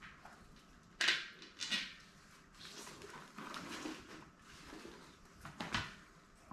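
Handling noises from working on a bicycle wheel and tyre: sharp clacks and knocks about a second in and again near the end, with rustling between.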